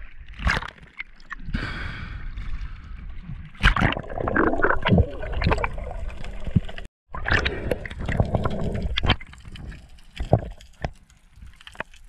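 Sea water sloshing and gurgling around a camera at the surface and underwater, with irregular knocks and splashes from a diver's movements. The sound cuts out for a split second a little past the middle.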